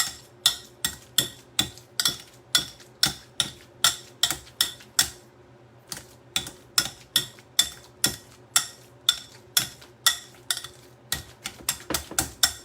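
Potato masher mashing avocado for guacamole in a bowl, with a sharp clink each time it strikes the bowl, about three strokes a second. The strokes pause for about a second midway and come quicker near the end.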